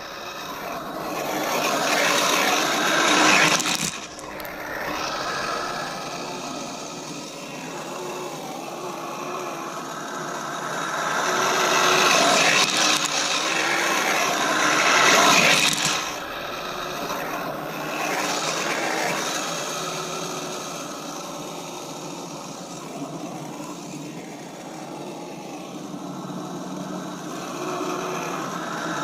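Kyosho Blizzard RC tracked snow vehicle driving, its electric motor and gear whine mixed with track noise, swelling and fading several times as the throttle is worked.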